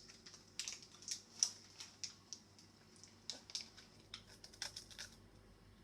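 Faint, irregular crisp clicks and crackles of someone biting and chewing a chocolate crackle: crunchy Cocoa Pops set in copha.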